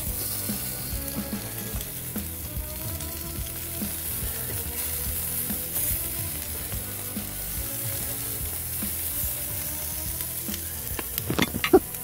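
Chicken drumsticks sizzling on a hot portable propane grill grate, a steady hiss, while metal tongs turn them. Near the end comes a quick run of sharp clicks.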